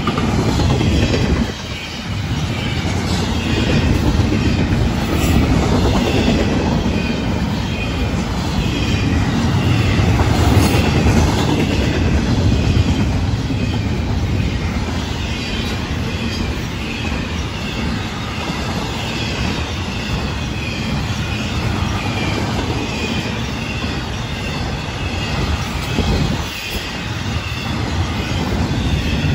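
Florida East Coast intermodal freight train's double-stack and trailer cars rolling past close by: a steady rumble of steel wheels on rail with a wavering high-pitched wheel squeal over it. The rumble drops briefly about a second and a half in and again near the end.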